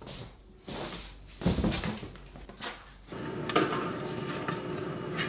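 A bedsheet being smoothed and rustled, with a thump about a second and a half in. Then a refrigerator door is opened, and a steady hum starts about three seconds in.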